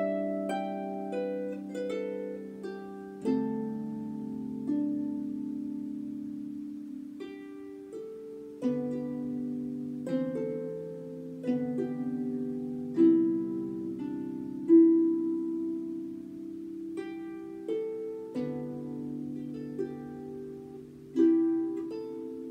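Solo harp playing a slow lament, plucked notes and chords left to ring and die away over held bass notes.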